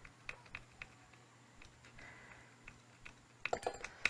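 Light clicks and taps of a small screw and screwdriver being handled against a PS4 controller's plastic shell, scattered at first, then a quick run of louder clicks near the end.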